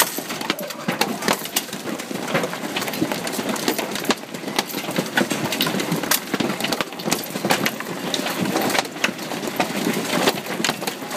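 Large hailstones pelting hard surfaces in a dense, continuous clatter of sharp strikes, heavy enough to smash windows.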